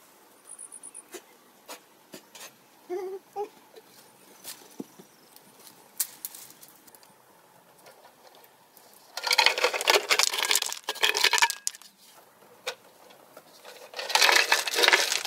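Stones tumbling out of a tipped clay pot and clattering onto a pile of rocks, in two pours of a couple of seconds each, the second near the end.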